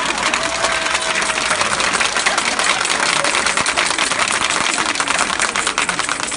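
Audience applauding: dense, steady clapping from many hands that begins to die away near the end.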